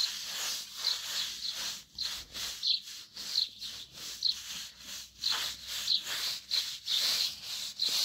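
A bird chirping over and over in short, high notes, about once or twice a second, over a run of rustling and scraping noises.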